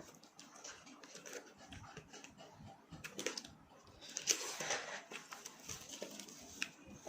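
A person eating cup noodles close to the microphone: irregular chewing and slurping, loudest about four seconds in.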